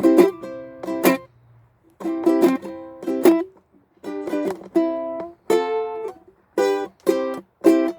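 Ukulele strummed by a beginner: short chords in a halting, uneven rhythm, with a brief pause about a second in.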